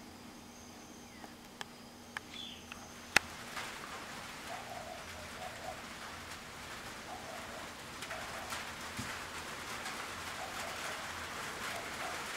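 A pigeon cooing in short groups of low notes, repeated several times, over a hiss that builds from about three seconds in. A single sharp click about three seconds in is the loudest sound.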